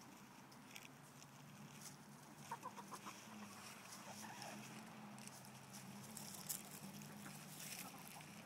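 Hens clucking softly: a quick run of about four low clucks some two and a half seconds in, and a few more a second or so later. Faint rustling clicks of scratching in dry leaves and a steady low hum sit underneath.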